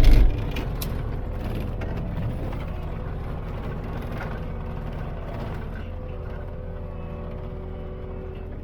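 Cat 299D compact track loader's diesel engine running steadily, after a loud burst of noise in the first moment.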